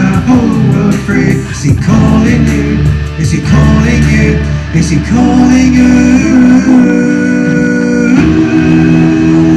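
Electro-acoustic guitar played through amplifiers with a man singing, his voice given an added harmony by a vocal harmonizer pedal.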